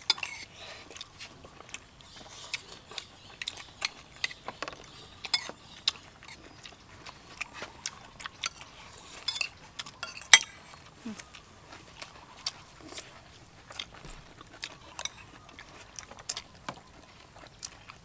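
People eating with metal spoons and forks: irregular clinks and scrapes of cutlery against ceramic plates and bowls, mixed with chewing. The sharpest clinks come right at the start and about ten seconds in.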